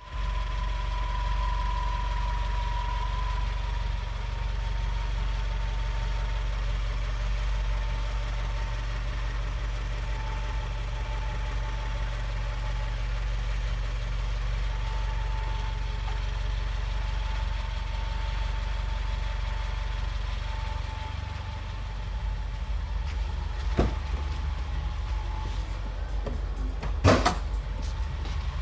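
Subaru WRX engine idling with a steady high whine over its low running sound. A sharp knock comes near the end, then a quick cluster of clicks.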